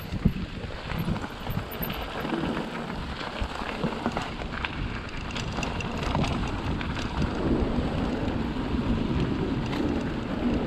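E-mountain bike tyres rolling over a rough gravel and rock trail on a downhill run, with frequent small rattles and knocks from the bike and wind buffeting the microphone.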